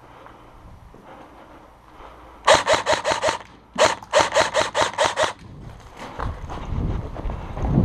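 Airsoft rifle firing two rapid full-auto bursts, each a fast even string of sharp cracks, the second longer than the first. Near the end a low rumbling noise rises.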